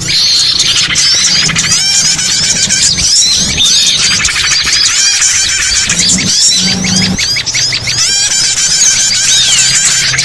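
Small-bird lure recording: many small birds chirping and trilling at once in a dense, overlapping chatter of short high calls, the kind of mix played to draw in small songbirds such as prinias and ioras. A low hum sits underneath at times.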